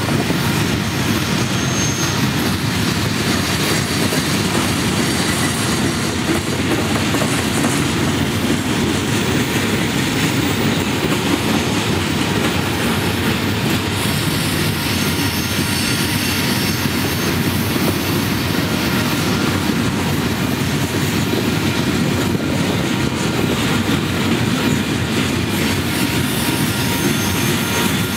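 Loaded centerbeam flatcars of a freight train rolling past: a steady, loud rumble of steel wheels on the rails.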